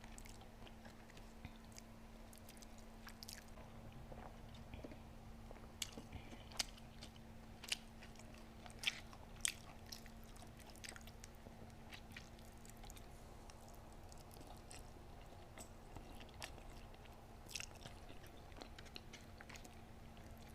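A person chewing and biting food close to the microphone: soft mouth clicks and small crunches at irregular moments, busiest between about six and ten seconds in.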